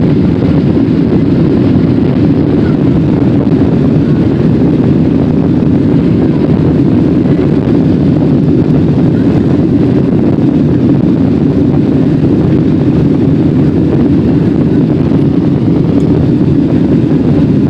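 Cabin noise of a Boeing 777 on its take-off roll: a loud, steady rumble of the engines at take-off power and the aircraft running down the runway, heard from a window seat by the wing.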